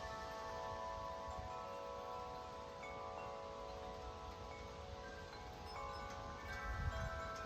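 A 50-inch Corinthian Bells tubular wind chime ringing in gusty wind, its long tubes holding a cluster of overlapping tones, with fresh strikes about six seconds in. Wind rumbles on the microphone and swells near the end.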